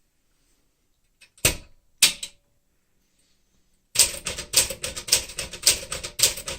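Keys of a 1964 Smith-Corona Sterling manual typewriter (elite typeface) striking the platen: two sharp clacks about half a second apart, a pause, then a fast, even run of keystrokes at about five a second.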